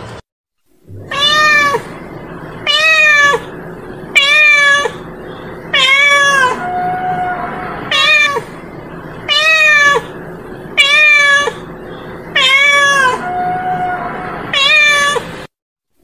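A domestic cat meowing loudly and repeatedly, nine drawn-out calls about one and a half seconds apart, with a steady hiss between them. The uploader describes it as a female cat calling for a mate.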